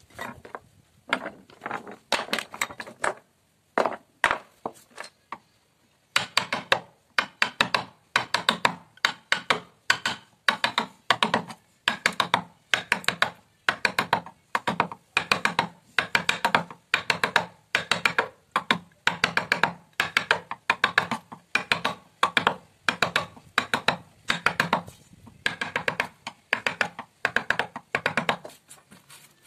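Wooden mallet striking a wooden-handled carving chisel, driving it into a wooden door panel: sharp knocks, a few scattered at first, then a steady fast run of several strokes a second from about six seconds in.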